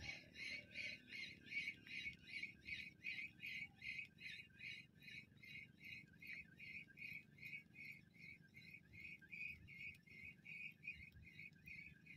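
Fishing reel being cranked during a retrieve: a faint high squeak on each turn of the handle, about four a second, in an even rhythm throughout.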